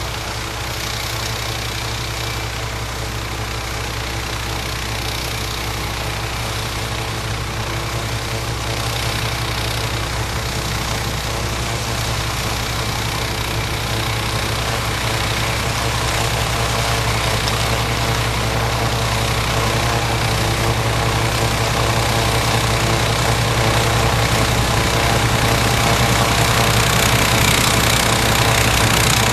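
John Deere 1032 snowblower, repowered with a 16 hp PowerMax engine, running steadily under load while it throws wet, slushy snow from its chute, with a steady rush of snow over the engine note. It grows gradually louder as it comes closer.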